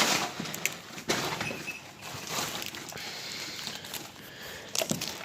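Handling noise from a phone camera being carried: several knocks and rubbing over a steady hiss.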